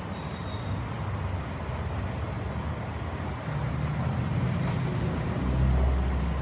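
Steady low background rumble that grows louder about three and a half seconds in and swells further near the end, with a short faint hiss a little past the middle.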